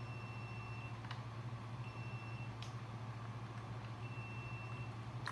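Three short, high electronic beeps, evenly spaced about two seconds apart, over a steady low hum, with a couple of faint clicks in between.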